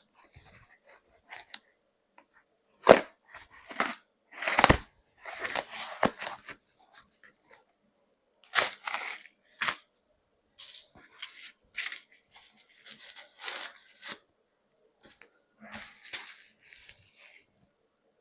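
Courier parcel being opened by hand: irregular bursts of tearing and rustling packaging with short pauses between them, and a sharp knock about three seconds in.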